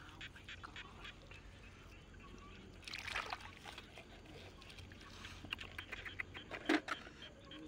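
Wet mud squelching and sucking, with small splashes and clicks of shell, as hands dig clams out of a mud bank and squeeze them in shallow muddy water. A louder squelch about three seconds in, and the sharpest wet smack near the end.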